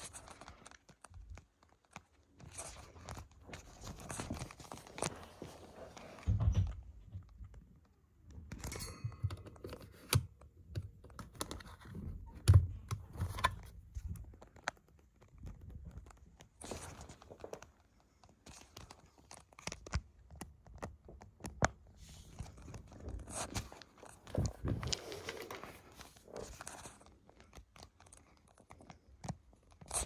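Irregular handling sounds: clicks, knocks and rustles, with a few heavier thumps. There is no steady motor hum.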